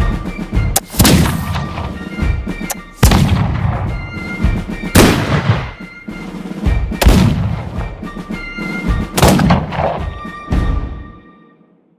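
A series of six loud gunshot-like bangs, spaced one to two seconds apart, each trailing off in a long echoing tail, with faint high steady tones beneath. The sound fades away near the end.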